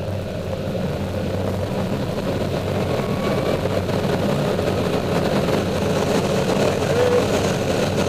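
Airflow rushing over the canopy and fuselage of an ASK21 glider, heard from inside the cockpit, growing steadily louder as the glider dives and gathers speed for a stall turn.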